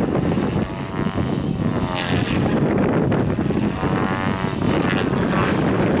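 Align T-Rex 500 electric RC helicopter flying: its rotor and motor whine rises and falls twice as it manoeuvres, over heavy wind rumble on the microphone.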